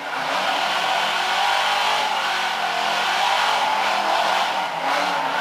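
Late-1960s Ford Mustang fastback doing a burnout: engine held at high revs while the rear tyres spin and squeal in a steady, loud howl. It stops abruptly just after the end.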